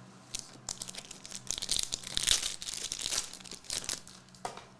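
Crinkling and rustling of trading card packs and cards being handled, with many small clicks, heaviest through the middle.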